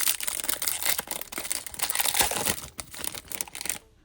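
Foil wrapper of a baseball card pack being torn open and crinkled by hand, a dense crackling that stops shortly before the end.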